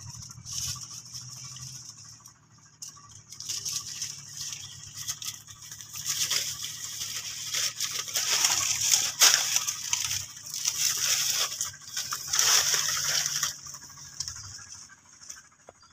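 Dry banana leaves and stalk rustling and scratching in irregular bursts as a small monkey climbs and moves over them. The sound is loudest in the middle and dies away near the end.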